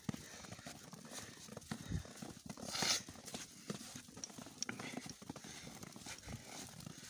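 Footsteps crunching in fresh snow at a slow walking pace, about two steps a second, with one louder brushing crunch about three seconds in.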